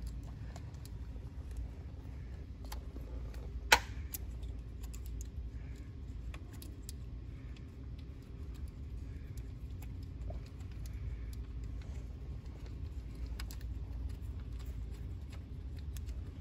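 Light metallic clicks and taps of a mounting screw being handled and started by hand into a diesel high-pressure fuel pump, with one sharp click about four seconds in, over a steady low hum.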